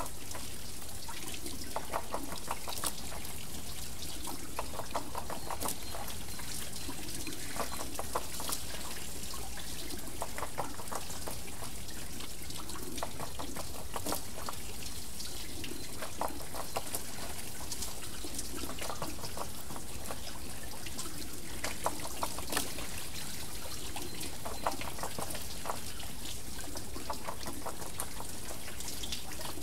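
Water wheel turning, with water pouring and trickling steadily and splashing in short bursts every couple of seconds as it spills from the wheel.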